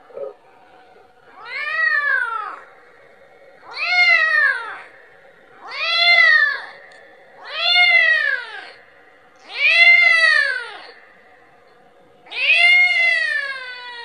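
A kitten meowing over and over, calling for its mother to feed: six drawn-out meows about two seconds apart, each rising and then falling in pitch.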